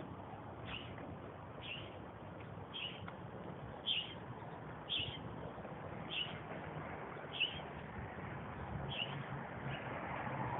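A bird chirping, a short high call repeated about once a second, over a steady background noise.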